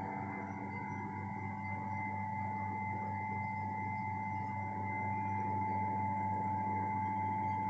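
Steady machine hum made of several held tones, low to mid-pitched, growing slightly louder about five seconds in.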